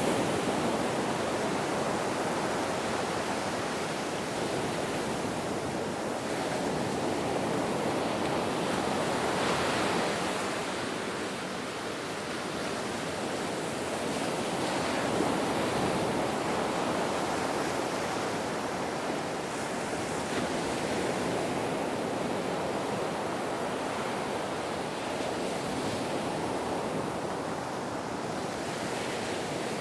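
Ocean surf: waves breaking and washing in a continuous rush that swells and eases every few seconds.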